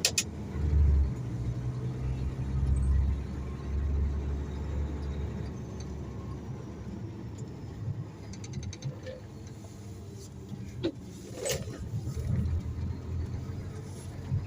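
Mercedes-Benz concrete mixer truck driving, heard from inside the cab: a steady low engine and road rumble that is heaviest in the first few seconds. A quick run of small clicks comes about eight seconds in, and a single sharp knock a few seconds later, over a rough road.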